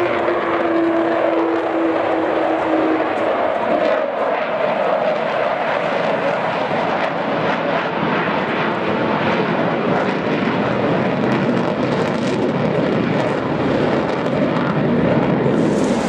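Large jet bomber's engines: a loud, steady rush of jet noise. A steady tone falls slightly and fades out about three seconds in.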